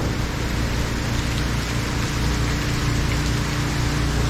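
Hurricane rain and wind, a steady, dense rush of noise, with a faint steady low hum underneath.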